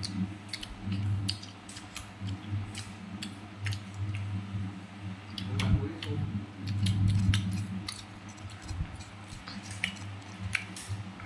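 Crisp crunches and clicks of someone biting and chewing slices of crunchy mango close to the microphone, coming irregularly several times a second.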